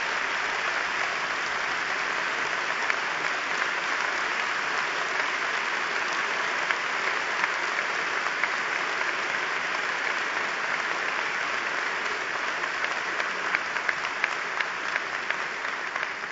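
A large audience applauding steadily: sustained, dense clapping that tapers off near the end.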